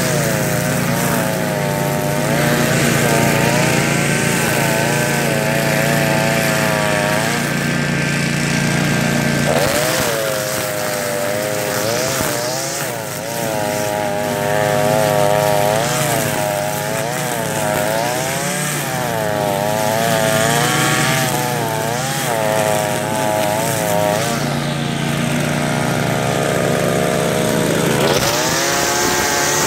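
Gas string trimmer running while cutting tall grass, its engine speed rising and falling over and over, about once a second, as the throttle is worked.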